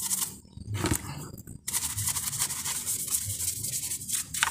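A small brush scrubbing soapy engine parts in a car's engine bay with quick scratchy strokes. The strokes are sparse at first, then run on steadily from about a second and a half in.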